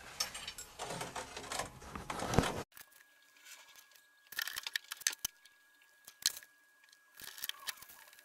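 Small metal burner fittings being picked up and handled on a steel workbench: scattered light clicks and rattles.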